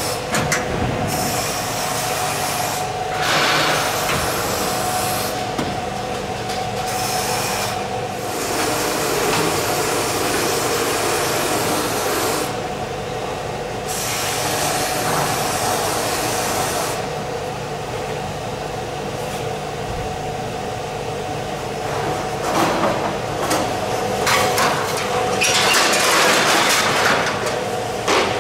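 A steady mechanical hum under a rushing noise that comes and goes, with a run of knocks near the end.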